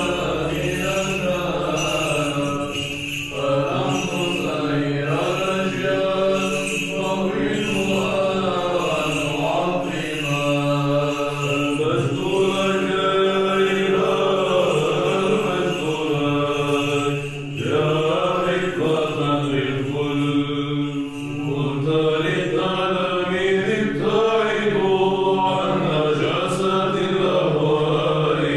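Byzantine liturgical chant: voices sing a melody that moves in phrases over a steady held drone (the ison), with short breaths between phrases.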